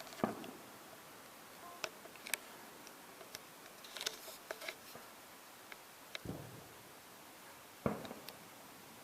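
Distant firework shells bursting: three dull booms, one just at the start and two near the end, with scattered sharp crackles and clicks in between.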